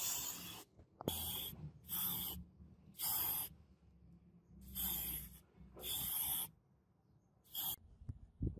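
Spray paint hissing in seven short bursts, each about half a second, as grey paint is sprayed onto a metal model car body. A couple of soft knocks near the end.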